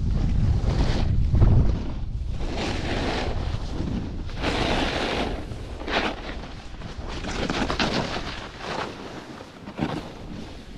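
Capita Spring Break Slush Slasher snowboard carving and scraping across packed snow through a series of turns, each turn a swelling hiss. Wind rumbles on the microphone for the first couple of seconds.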